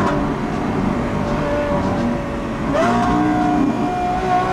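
Lamborghini Aventador SVJ's V12 with a Gintani F1 exhaust running at a steady cruise, rising in pitch about three seconds in as it picks up speed. Road and wind noise are heard alongside it.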